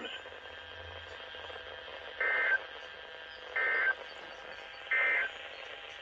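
Three short, identical warbling data bursts of SAME digital code from a Midland weather radio's speaker, about a second and a half apart over faint hiss: the end-of-message signal that closes the NOAA Weather Radio weekly test.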